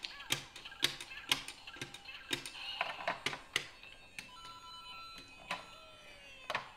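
Plastic LEGO bricks clicking and clattering as pieces are handled and pressed together, a run of sharp clicks about twice a second that thins out after three or four seconds. A few faint steady electronic tones sound in the latter half.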